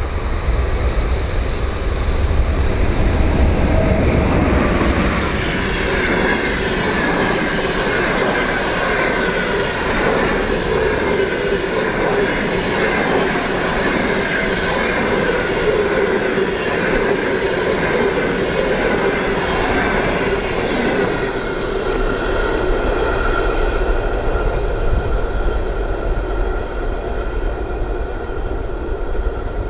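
A passenger train hauled by an electric locomotive rushing past at speed: a loud rush of wheels and air, with a rapid, even clickety-clack of the wheels over the rail joints through the middle and a steady whine from the wheels on the rails.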